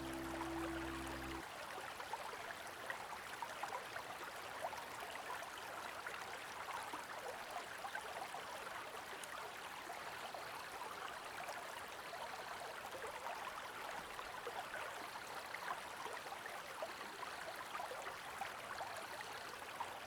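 Faint, steady rush of flowing creek water. Background music cuts off about a second in, and in the second half a faint high note repeats every couple of seconds.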